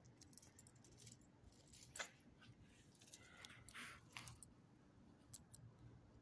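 Faint jingling and clicking from a small dog's collar tag as the leashed dog moves about sniffing the ground, with a few short rustles about two and three to four seconds in.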